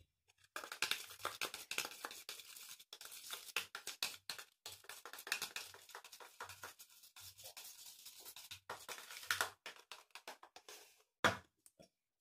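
Scissors stirring a soap and conditioner mixture in a plastic cup: quick, continuous scraping and clicking against the cup, with one sharp knock near the end.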